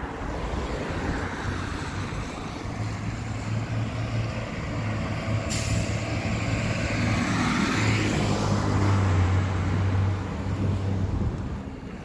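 Low engine rumble of a heavy road vehicle that grows louder and is loudest about eight to ten seconds in. A sudden air hiss starts about five and a half seconds in.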